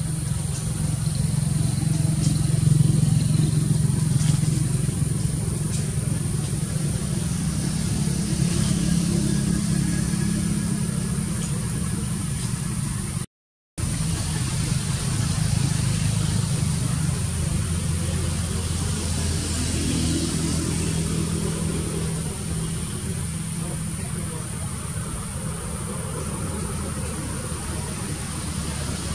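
A steady low mechanical hum, like an engine running, with a constant high hiss above it. The sound cuts out completely for a split second about halfway through.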